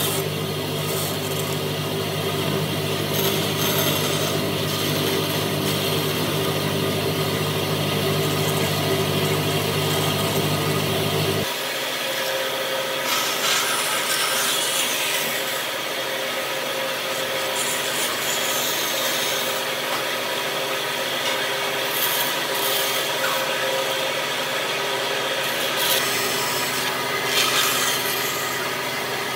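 Band saw running, its blade cutting notches into a pine board, over a steady motor hum. About a third of the way in the deep part of the hum cuts off abruptly.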